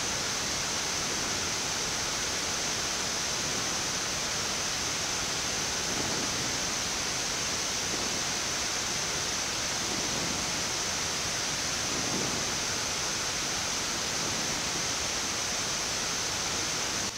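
Steady, even hiss of air flow on a Boeing 787-8 flight deck while the engines are being started, with no clear rise or break in the sound.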